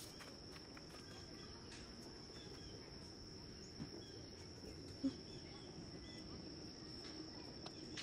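Insects, crickets or the like, trilling steadily on one high pitch in the woods, with a couple of faint knocks about four and five seconds in.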